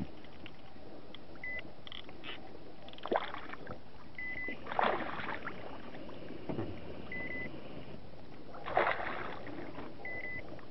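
A hooked walleye splashing and thrashing at the water's surface beside the boat as it is reeled in, in three separate bouts over a steady background of wind and water. A short electronic beep repeats about every three seconds.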